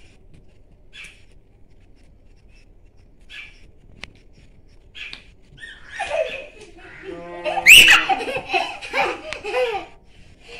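Young children laughing: a few soft breathy giggles at first, then loud laughter from about six seconds in, with one high, rising squeal.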